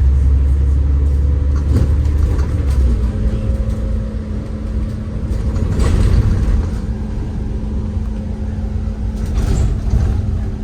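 Inside a city bus on the move: a low engine rumble that eases about three seconds in, where a steady drone takes over, with a few short knocks and rattles from the cabin.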